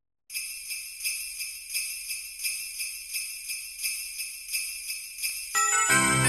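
Jingle bells shaken in a steady beat, a little under three shakes a second, as the opening of a song; near the end the rest of the music comes in with bass and sustained notes, and it gets louder.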